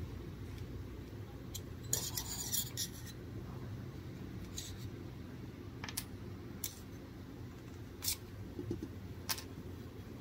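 Metal scraper prying cured resin test prints off a 3D printer's build plate: a short scraping rasp about two seconds in, then scattered light clicks and taps as the scraper and the small hard resin pieces knock against the plate and each other. The prints come away easily.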